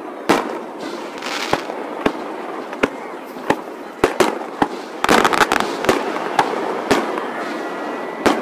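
Aerial fireworks shells bursting close by, sped up: about a dozen sharp bangs over continuous crackling, with a rapid cluster of bangs about five seconds in.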